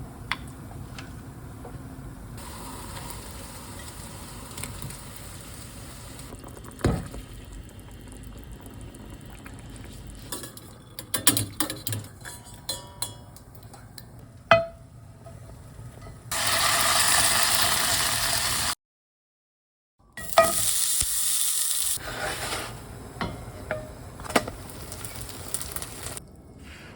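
Home-kitchen cooking sounds: food sizzling in a pan while utensils clink and scrape against it, with two louder stretches of hissing in the second half.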